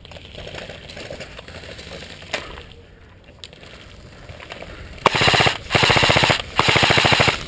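Airsoft rifle firing on full auto: three short bursts of very rapid shots, starting about five seconds in. Before that, low background noise with a single sharp click about two seconds in.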